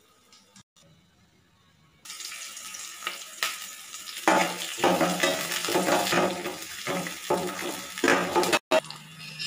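Onions and green chillies frying in hot oil in a steel pot, a sizzling hiss that starts suddenly about two seconds in, with clatters as the food drops in and is stirred.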